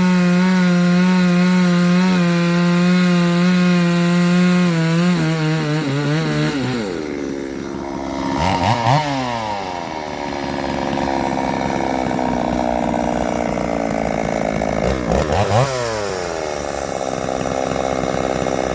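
Petrol chainsaw cutting through hard, dry wood at a steady high pitch for about six seconds, then dropping off the cut, with two quick revs up and down later on. The chain is sharpened to unusual test angles.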